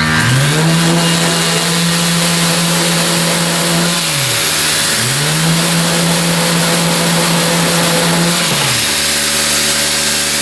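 Grabo vacuum pump motor running with a hiss of air being drawn through the air cup hose; its hum climbs in pitch near the start, holds, sags about four seconds in, climbs again a second later and sags once more near the end.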